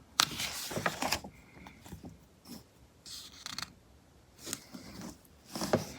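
Pages of a heavy-paper glossy magazine being handled and turned: short rustles and paper slides, the longest in the first second, then a few briefer ones.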